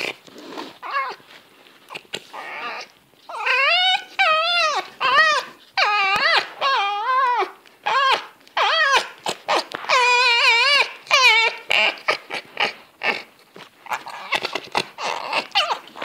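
A pet white fox vocalising in play: a run of loud, long whining calls with a wavering, warbling pitch from about three seconds in to about eleven seconds, with shorter breathy chattering sounds and many sharp clicks before and after, as it play-bites a person's hand.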